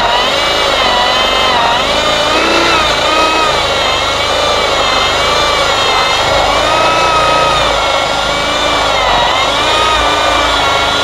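Corded electric drill with a 1 3/8-inch bit boring through a stack of four eastern red cedar boards. The motor whine is steady and loud, wavering up and down in pitch throughout.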